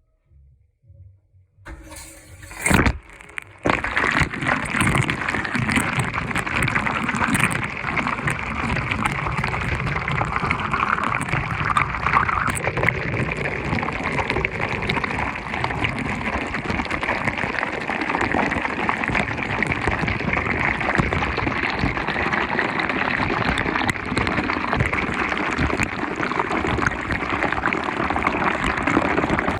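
Washing machine running: a few clicks, then from about four seconds in a steady rush of water filling the drum.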